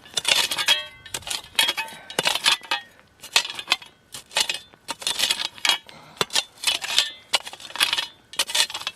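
A metal digging tool striking and scraping stones in rocky soil, with sharp metallic clinks about two a second.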